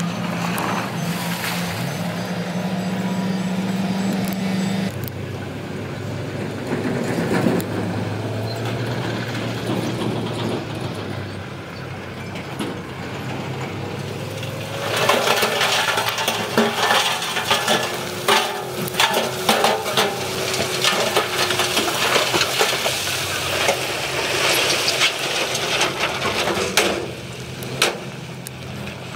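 Diesel engines of heavy earthmoving machines running steadily. About halfway through, a long rattling clatter of loose rock fill sliding and tumbling over the engine noise lasts roughly twelve seconds.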